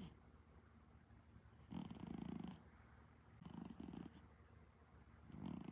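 Exotic Shorthair cat snoring in its sleep. There are three soft, fluttering snores about two seconds apart, one on each breath.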